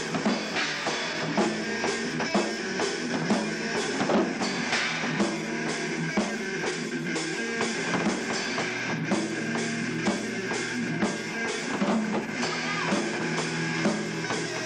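Black metal band playing: distorted electric guitars over a drum kit, with regular, steady drum hits throughout.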